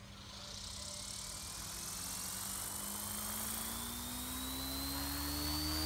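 Electric RC helicopter, a Goblin 380 converted to 420 with an Xnova 980kv motor, spooling up on the ground. The high motor and gear whine and the rotor tone rise steadily in pitch and get louder as the rotor head gathers speed.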